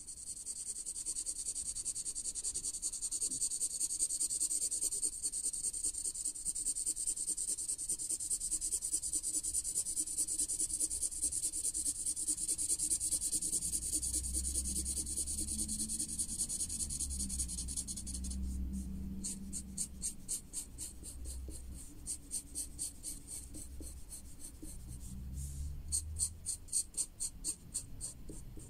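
Felt-tip marker scribbling back and forth on paper to colour in a shape: a steady, scratchy hiss of fast strokes that, about eighteen seconds in, breaks into quicker, separate short strokes.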